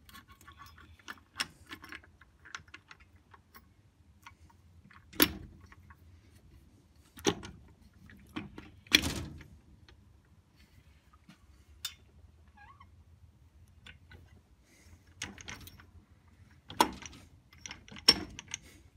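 Steel transmission shafts and gears of a Suzuki RM250 engine clicking and clinking as the meshed pair is fitted by hand into the crankcase, with about five sharper metal knocks spread through.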